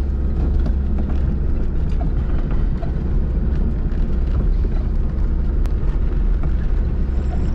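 Zastava Yugo's engine running steadily at low revs, heard from inside the cabin as the car crawls over a bumpy grass track, with a few light knocks from the body.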